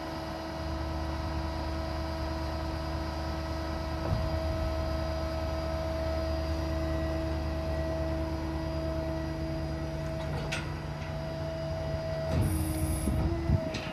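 Hydraulic system of a Summit 6620 service crane, driven off the 6.7 Powerstroke diesel's PTO, running in a steady hum as the two-stage boom extends. The low part of the hum drops away about twelve seconds in, as the boom reaches full extension, followed by a brief change in the sound.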